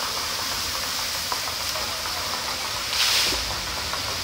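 Water jets of a large fountain hissing and splashing steadily into its pool, with a brief louder whoosh of spray about three seconds in.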